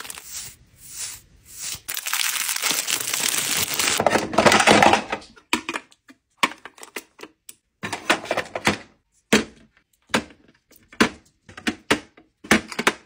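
Cellophane wrapping crinkling for the first five seconds or so as a facial cleansing brush is unwrapped. Then comes a string of short, separate clicks and taps as items are set down in clear acrylic organizer trays.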